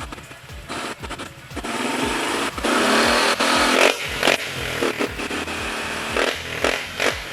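Honda PCX 150 scooter engine running through an MT8 aftermarket exhaust with a stainless tip, being revved by throttle blips. It builds to a long loud rev about halfway through, then gives several short quick blips.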